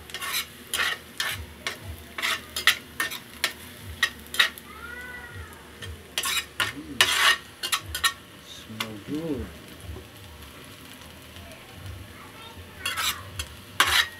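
A metal spatula scrapes and stirs chopped garlic in a frying pan, with the garlic sizzling in hot oil. The scrapes come in irregular bursts of strokes, with a quieter stretch of plain sizzling in the middle.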